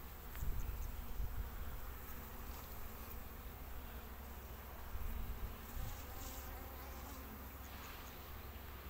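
Honeybees buzzing steadily around an opened hive, with a few low thumps as the hive is handled.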